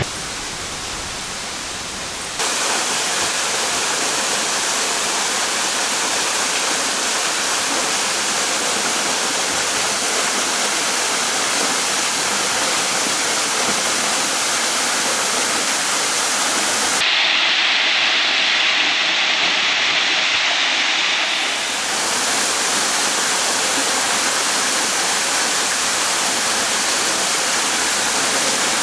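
Waterfall: a steady rush of falling water that changes abruptly in loudness and tone a few times, once getting brighter and hissier for a few seconds in the middle.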